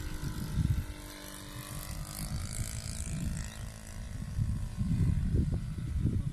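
Motor of a radio-controlled Fokker Dr.I triplane model flying past overhead, a steady droning tone that fades out about three seconds in. Wind rumbles on the microphone, stronger near the end.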